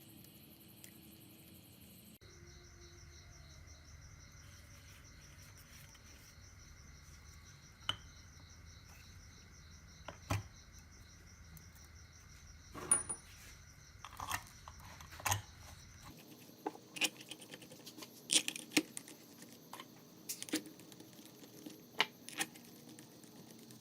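Scattered light metallic clicks and taps of small metal parts and hand tools being handled, over a faint steady hum; the taps come more often in the last third.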